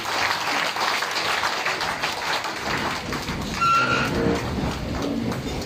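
Audience applauding, with a short steady high tone a little past halfway.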